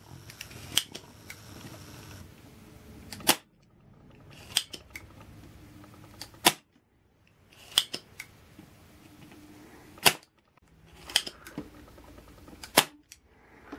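Spring-loaded solder sucker (desoldering pump) being cocked and fired about four times, each release a sharp snap as it sucks molten solder off the circuit board's pads.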